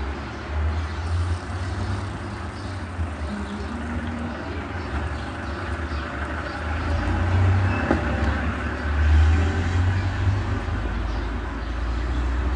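Outdoor street ambience: a steady low rumble with a haze of noise over it, swelling louder from about seven seconds in and easing off after about ten seconds.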